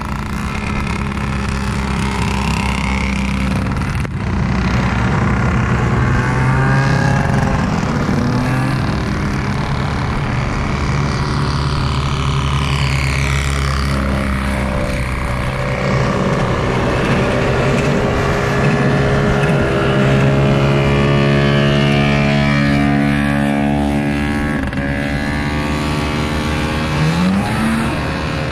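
Several vintage two-stroke snowmobiles on wheel kits running past one after another, their engines buzzing and overlapping, with the pitch sliding as each one goes by.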